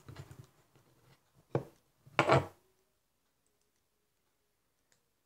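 Plastic fidget spinner being handled as a bearing cap is pressed onto its bearing: two short sharp knocks about a second and a half and two seconds in, then quiet.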